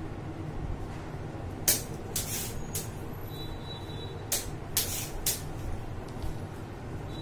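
A few short, sharp rustling hisses in two clusters, about two seconds in and again about four and a half to five seconds in, from a plastic piping bag being handled. Under them is a steady low background hum.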